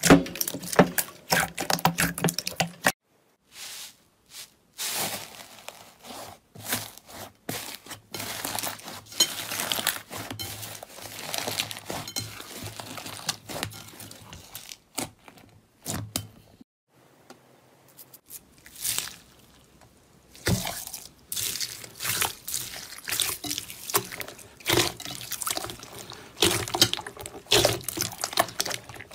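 Slime being squeezed, kneaded and stretched by hand in a glass bowl: irregular wet squelches, clicks and small pops, with short pauses about three seconds in and again around seventeen seconds.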